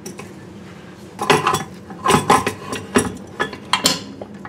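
Clinks and knocks of a watch-cleaning machine's parts basket being hung and lowered into its glass jar. There are several sharp strikes, starting about a second in.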